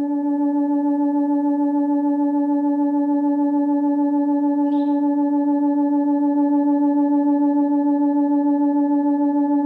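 Chladni plate driven by a steady tone at the note D (about 288 Hz in A=432 tuning), one unchanging pitch with overtones and a slight waver, as the sand holds its nodal pattern.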